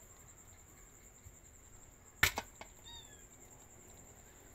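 A sharp knock against a metal plate about two seconds in, with a smaller tap right after it, then a faint short falling squeak. A steady high-pitched whine runs underneath.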